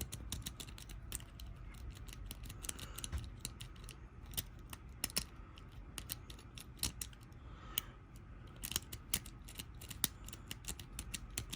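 Lock pick working the pins inside a Kwikset pin-tumbler lock cylinder: light, irregular metallic clicks as the pins are raked and pushed, with the cylinder not yet open.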